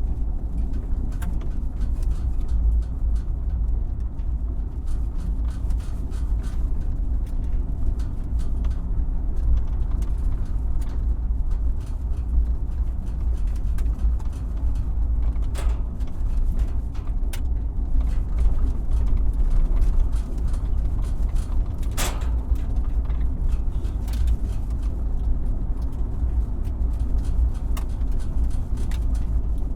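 Truck driving over a bumpy road: a steady heavy low rumble, with sharp knocks and rattles as it hits bumps; a few of the knocks stand out, the loudest past the two-thirds mark.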